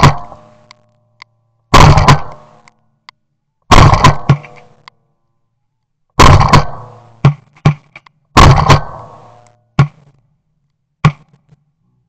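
Shotguns firing at a passing flock of ducks: five loud shots about two seconds apart, each trailing off in an echo, with fainter, shorter shots in between and near the end.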